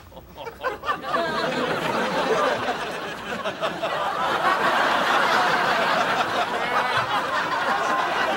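Sitcom studio audience laughing: a few scattered laughs, then a loud, sustained wave of laughter from about a second in.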